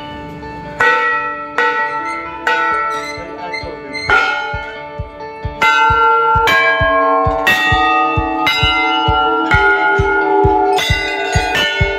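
Large hanging brass temple bells struck one after another by hand, about a dozen strikes roughly a second apart, each ringing on into the next, with the pitch changing as different bells are rung.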